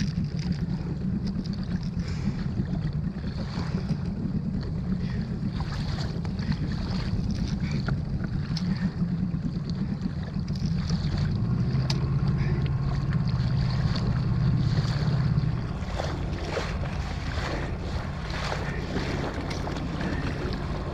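Small outboard motor running steadily as the inflatable boat trolls, with wind on the microphone. The motor grows louder about halfway through, then drops back suddenly a few seconds later.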